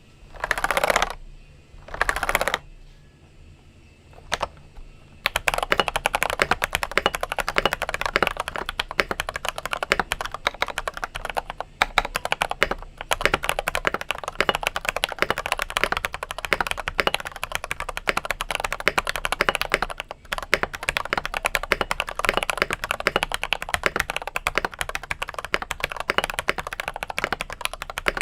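Fast, continuous typing on an NCR-80 custom mechanical keyboard with stock factory-lubed Gateron Pro Milky Yellow linear switches, the board damped with PE foam and three layers of tape. The typing starts about five seconds in and breaks off briefly about two-thirds of the way through.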